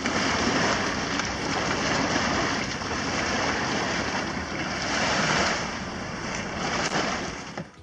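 Water rushing and splashing around a boat trailer's wheels and frame as it is hauled up a boat ramp out of the lake, mixed with wind buffeting the microphone. The loud, steady rushing stops abruptly near the end.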